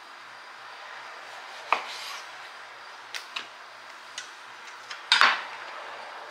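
Scattered sharp knocks and clicks of a knife and kitchen utensils on a cutting board and dishes as tomatoes are cut up, about half a dozen taps with the loudest a double knock about five seconds in.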